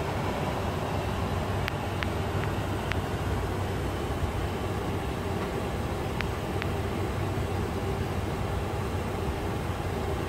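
Steady cockpit noise of an Airbus A330-300 on the ground: engine and airflow hum with a low rumble. A few light clicks sound about two seconds in and again about six seconds in.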